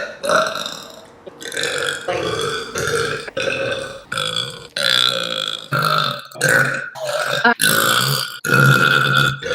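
A girl burping over and over, a rapid run of short burps at about one or two a second.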